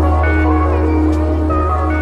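Background music with sustained synth chords over a deep held bass note.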